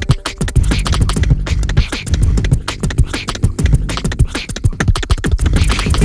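Beatboxing into a microphone: fast, rhythmic mouth-made drum hits and clicks over heavy low bass.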